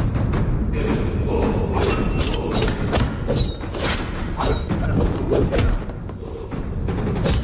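Film fight-scene sound effects over a low music score: a fast run of punch and body-blow thuds, with a few short high swishes of swung blows or the knife.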